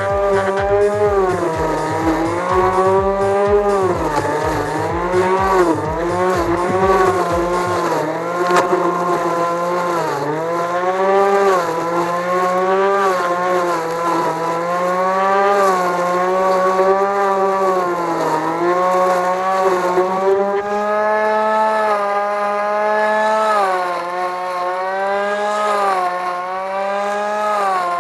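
Blender's electric motor, rebuilt as a homemade lawn mower, running at high speed with a steady whine. Its pitch dips and recovers over and over.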